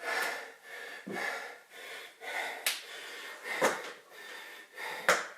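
A man breathing hard, out of breath from a round of bodyweight exercises: about five loud breaths, roughly one a second, with a short click about halfway through.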